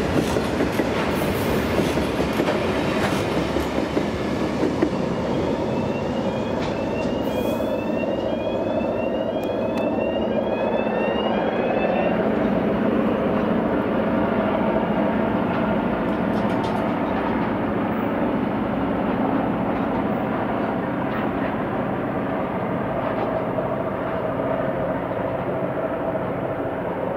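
Loaded grain hopper wagons rolling past with a clickety-clack of wheels over rail joints and a run of short rising squeals. About 12 seconds in it gives way to the steady running of SSR Streamliner S312's EMD 567 two-stroke diesel.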